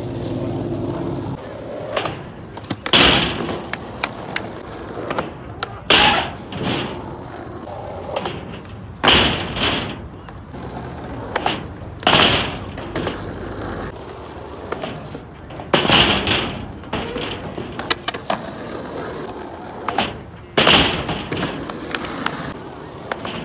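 Skateboard wheels rolling on pavement, broken every few seconds by sharp clacks of the board hitting the ground as tricks are popped and landed.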